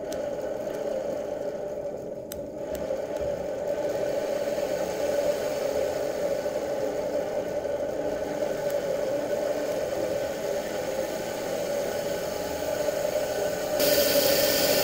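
A 1 HP, 220 V washing-machine universal motor running unloaded at high speed on 12 V DC from a UPS battery, with a steady pitched whir. It grows louder and hissier near the end.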